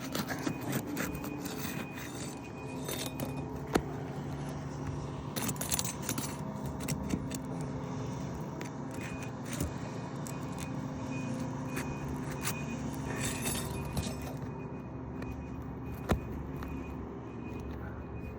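Steel pry bar scraping and clicking against asphalt roof shingles as their sealant strips are broken loose, with a scattering of short metallic clicks and a louder knock about four seconds in. A steady low hum runs underneath.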